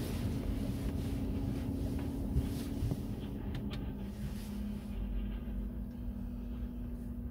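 Car stopped at a red light, heard from inside the cabin: a steady low engine hum at idle with the rumble of traffic passing at the junction.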